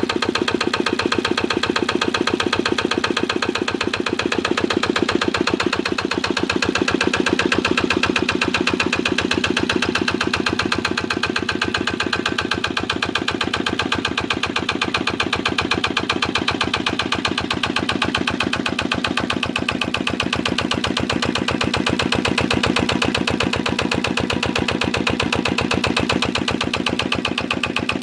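1965 Lister LD1 single-cylinder air-cooled diesel engine running steadily with an even beat, fitted with a reconditioned injector.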